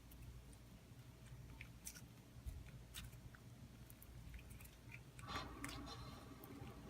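Faint sticky clicks and squelches of freshly activated glue slime being stretched and handled, a little louder about five seconds in.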